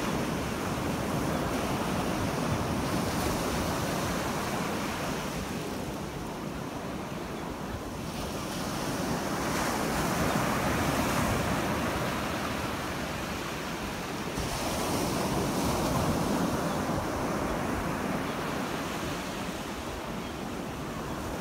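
Ocean surf breaking on a sandy beach, a steady wash that swells and fades as each wave comes in, with wind buffeting the microphone.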